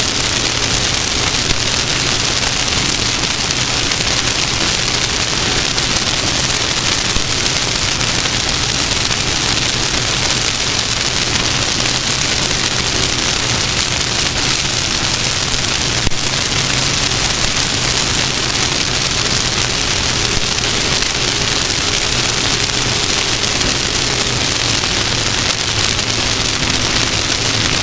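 Off-road race vehicle at speed, heard on board: a loud, steady rush of wind and road noise with a low engine drone faintly underneath. There is a single sharp tick about halfway through.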